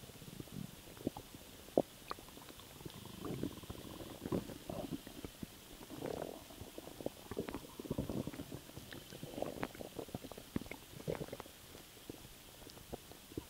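Human stomach gurgling from swallowed air: a string of irregular wet gurgles and small pops, with a sharp click about two seconds in.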